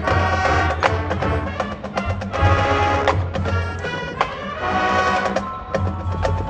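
Marching band playing its field show: sustained brass chords over front-ensemble mallet percussion, with many quick struck notes and a steady low bass line.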